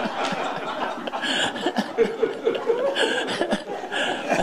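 Elderly man laughing, a run of short chuckles.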